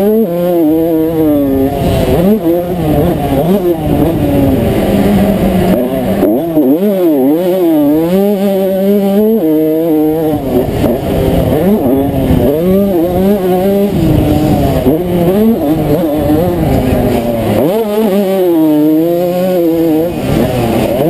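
1992 Honda CR125 two-stroke single-cylinder engine at race pace, heard close up: its pitch climbs and drops again and again with throttle and gear changes.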